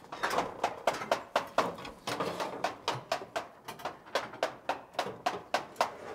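Quick, irregular knocks and clacks on a building-site scaffold, about three or four a second.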